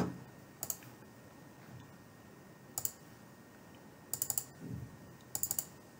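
Computer mouse buttons clicking: a single click, then quick double-clicks in small groups, as folders are opened one after another.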